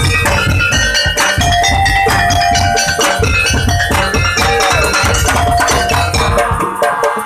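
Ensemble music with a busy rhythm of drums and struck percussion over a heavy bass, and ringing bell-like tones above it. The bass drops out near the end while the higher percussion keeps going.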